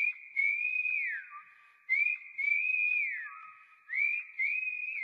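A whistled melody opening a song: one clear high line in short phrases, each swooping down at its end, with faint clicks behind it.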